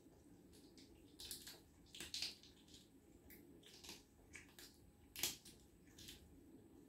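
A cat chewing raw fish giblets from a plate: faint, short, irregular chewing clicks, the loudest a little past five seconds in.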